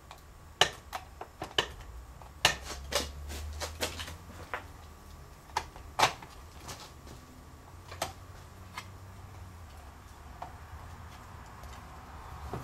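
Irregular small clicks and taps of hard plastic and metal parts being handled and pressed together as a gauge's prongs are worked into a truck instrument cluster. They come thickly at first and thin out after about eight seconds, over a steady low hum.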